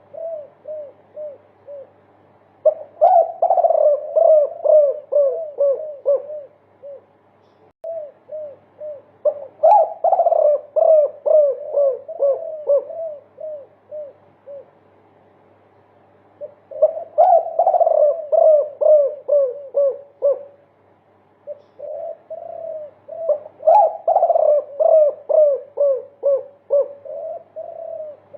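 Spotted dove (derkuku) of the multi-coo type cooing in long phrases of rapid, repeated coos, about three a second. There are four such phrases, separated by short pauses.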